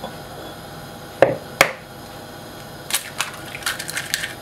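An eggshell being cracked: two sharp taps about a third of a second apart, then a run of small crackles as the shell is broken open and pulled apart over the bowl.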